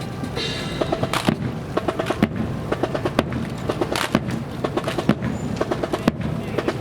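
Fancy rifle drill by a drill team: the clatter of rifles being spun, caught and slapped, many sharp knocks in quick, irregular succession.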